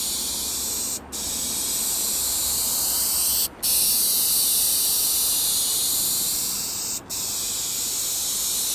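Dupli-Color Perfect Match aerosol spray paint can spraying onto a car hood: a steady hiss, broken by three brief gaps between passes.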